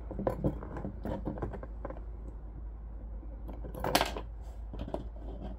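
Small metallic clicks and taps of machine screws, lock washers and ring terminals being handled and fitted onto the flange of a chassis-mount coax connector. About four seconds in there is a louder click-and-scrape as a screwdriver turns a screw into the flange. A steady low hum runs underneath.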